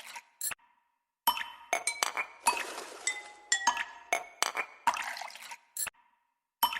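Background music made of glassy clinks and chimes with a fading hiss after them. The same short phrase repeats about every two and a half seconds, with brief silent gaps between some repeats.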